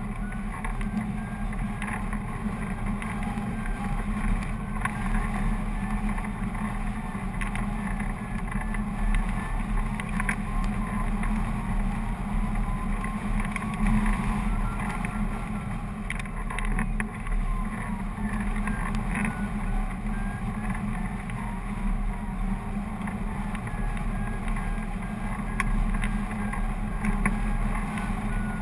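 Steady rushing and buffeting of airflow over the microphone of a hang glider in flight.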